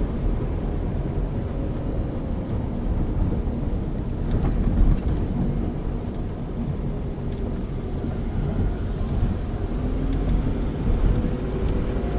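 Interior road and engine noise of a Toyota Isis 2.0 minivan driving at low speed, a steady low rumble inside the cabin, with the engine note rising slightly near the end.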